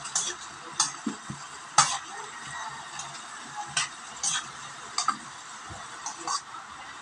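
Diced opo (bottle gourd) sizzling in a wok while it is stirred, with irregular scrapes and clicks of the spatula against the pan, the loudest about two seconds in.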